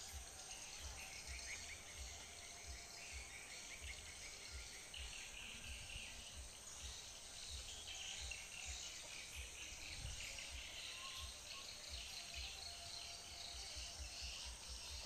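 Faint riverside mangrove ambience: insects chirring steadily with a few bird chirps, under an irregular low rumble on the microphone.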